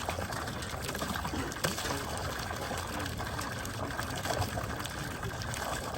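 Water pouring steadily into a lake, the outflow of a trout-stocking release.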